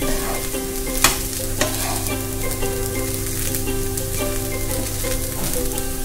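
A flat spatula stirring and tossing poha (flattened rice) in a non-stick pan, the grains scraping over the pan with a light sizzle. There are a few sharper scrapes of the spatula against the pan, the loudest about a second in.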